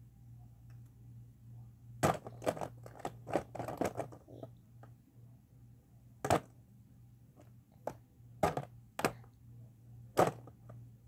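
Plastic felt-tip markers clicking and clattering as they are rummaged through and picked up. A quick run of clicks comes about two seconds in, then single clicks a few seconds apart.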